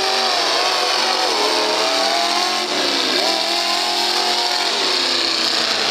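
Mega truck engines revving hard under heavy throttle. The pitch swings up and down, drops sharply a little before halfway, then climbs again.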